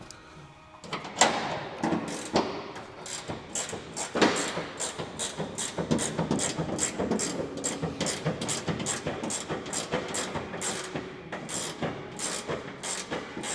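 Ratchet wrench clicking in short back-and-forth strokes, about two or three a second, working a lock nut off a bolt under the truck bed. A few louder knocks come in the first few seconds.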